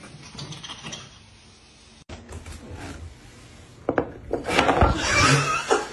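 Ceramic plate of wet cat food clattering and scraping on a wooden floor, loud and rough in the last two seconds, after a faint first half.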